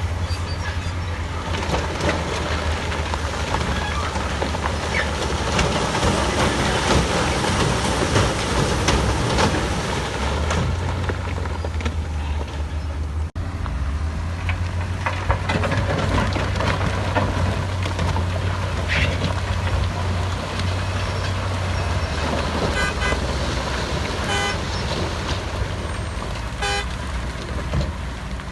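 Heavy diesel earthmoving machinery working, a steady low engine drone with continual rattling and knocking over it. A few short tones sound near the end.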